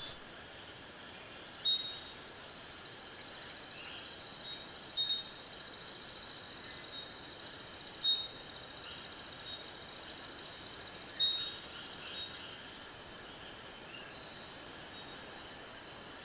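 Steady chorus of insects chirring, with short high chirps about once a second and a louder brief chirp every three seconds or so.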